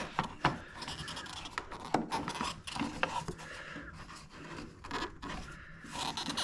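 Irregular scraping and rubbing with scattered sharp clicks: hands working a refrigerator water-line quick-connect fitting, pushing in its release ring while tugging on a hose that won't come free.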